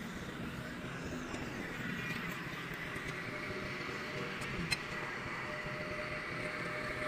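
Steady hum of distant road traffic, with a faint steady whine over it and a single sharp click about four and a half seconds in.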